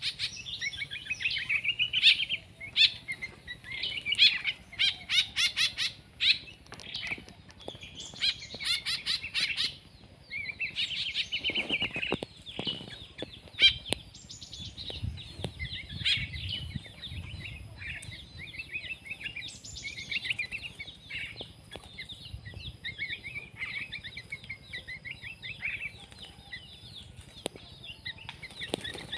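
Small songbirds chirping in quick, busy series of high calls, loudest in the first ten seconds and softer after.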